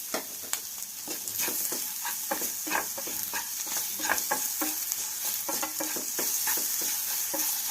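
Grated ginger and jaggery powder frying in ghee in a pan, a steady sizzle, stirred with a spoon that scrapes the pan about two or three times a second.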